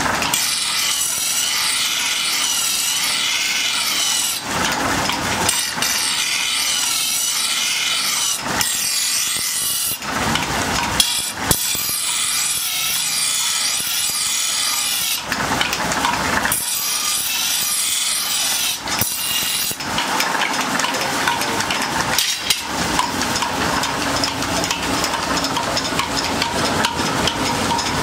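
A steel sword blade ground against a spinning grinding wheel: a harsh scraping hiss that breaks off and starts again every few seconds as the blade is pressed on and lifted. About twenty seconds in the grinding takes on a steadier, humming tone.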